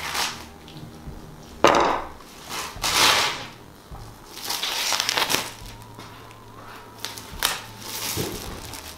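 Clear plastic protective film being peeled and pulled off a metal poster, crackling in several separate bursts, the loudest about two seconds in.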